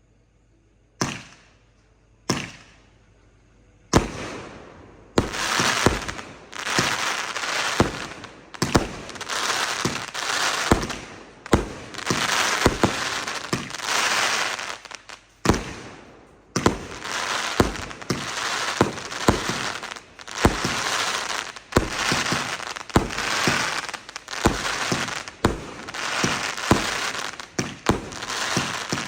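Dragon Fireworks multi-shot consumer cake firing. Three single shots in the first few seconds, then a steady barrage of about one shot a second, each followed by a crackling burst.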